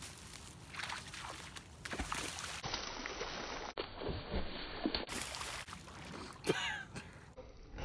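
Lake water splashing and sloshing as a magnet on a rope is thrown into the shallows and hauled back by someone wading, with a few short knocks and one louder splash-like burst late on. The sound changes abruptly several times.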